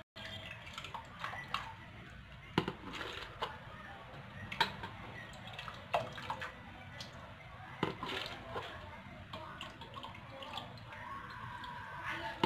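Water ladled from a steel pot and poured into a large glass jar of olives, splashing and sloshing, with a few sharp clinks of the ladle every couple of seconds. The water is cooled lemon water being poured in to cover the olives for pickling.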